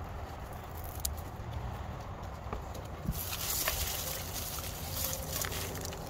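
Hands digging and turning loose potting soil in a container, the soil rustling and pattering with small scattered ticks, louder from about three seconds in.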